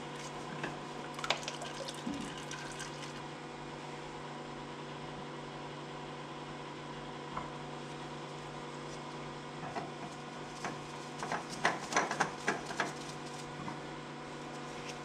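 A new spin-on oil filter being wiped and threaded by hand onto a Kubota L2350 tractor engine: a few small clicks and knocks about a second in, and a quick cluster of them near the end, with oil dribbling into the drain pan below. A steady hum runs throughout.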